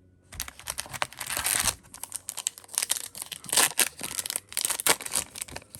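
Trading card pack wrapper being torn open and crinkled: a run of crackly rustling with many sharp crackles.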